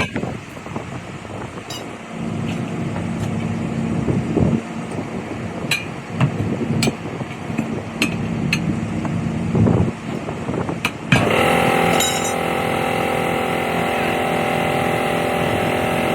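Sharp knocks and taps of tyre repair tools over a steady engine hum. About eleven seconds in, a louder steady sound takes over.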